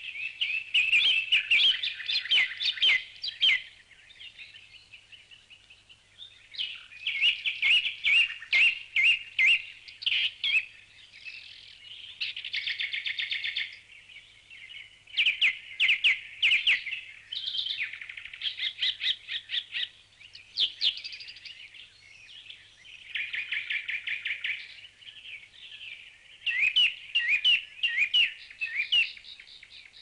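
A songbird singing in bouts of a few seconds, each a varied phrase of quick chirps and trills, with short pauses between the bouts.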